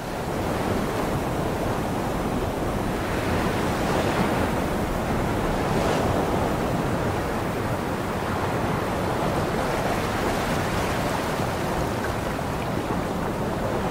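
Sea waves and surf washing steadily, a rushing hiss that swells and eases every few seconds.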